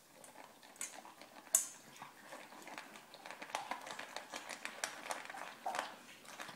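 Dog eating dry food from a stainless steel bowl: irregular crunching and small clicks of the food and muzzle against the metal, the sharpest click about a second and a half in.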